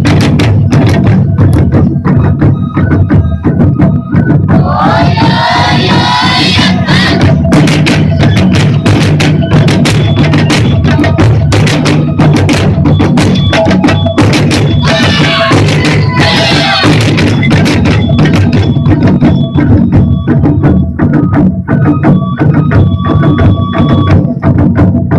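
Japanese taiko drum ensemble playing fast, dense strikes. Twice, about five and fifteen seconds in, a group of voices calls out over the drums.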